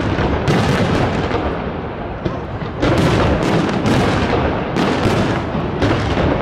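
Fireworks display: a rapid series of loud aerial shell bangs, several a second, with a rumbling din between them. The bangs ease off briefly about two seconds in, then come thick and fast again.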